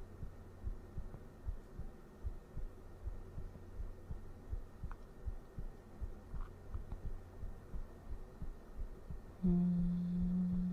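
A human heartbeat picked up close on a microphone: regular, soft, low thumps at a steady rate. Near the end a voice hums one steady low note for about a second.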